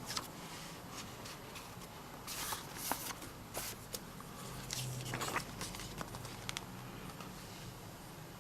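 Paper being handled as an album's photobook is leafed through: short rustles of turning pages, with scattered light clicks and taps, busiest in the middle.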